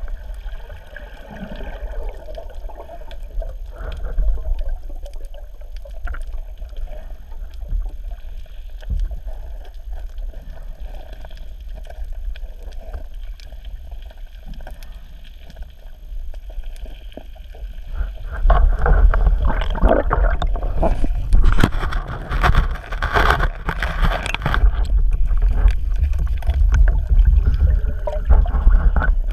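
Water gurgling and churning around an underwater camera over a steady low rumble, with scattered clicks; about two-thirds of the way through it turns much louder and busier, with dense crackling and splashing.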